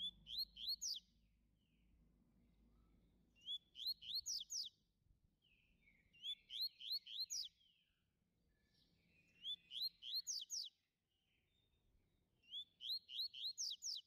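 Double-collared seedeater singing: five short phrases, each a quick run of four to six rising whistled notes, repeated about every three seconds.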